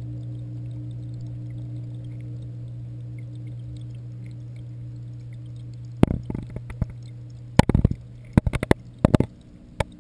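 Steady low electric hum heard underwater in a reef aquarium, as of the tank's pumps. From about six seconds in come clusters of sharp knocks and clicks as the submerged camera is handled and bumped about.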